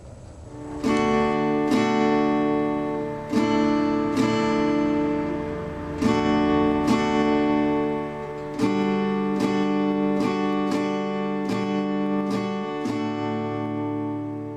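Background music: acoustic guitar strumming chords, starting about a second in and fading near the end.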